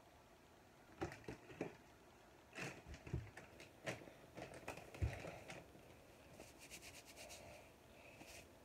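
Handling noises: scattered light knocks, clicks and rubbing close to the microphone, the loudest a dull thump about five seconds in, followed by a short run of quick fine ticks.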